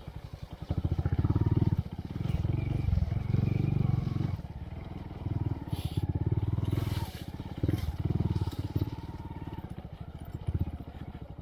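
2023 Honda Monkey's single-cylinder engine through a Yoshimura RS3 exhaust with spark arrestor, opened up in about five short bursts of throttle with quieter let-offs in between.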